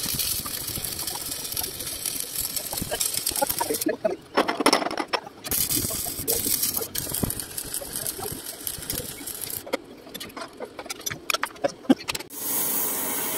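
Electric arc welding on a steel truck chassis frame: a steady crackling sizzle that stops for a moment about four seconds in, then resumes. Near the end it gives way to scattered knocks, and then a steady hiss.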